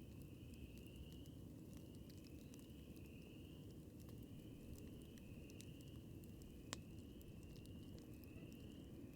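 Campfire crackling faintly over a low, steady background, with sparse small pops and one sharper pop about seven seconds in. A high chirp repeats steadily about once a second behind it.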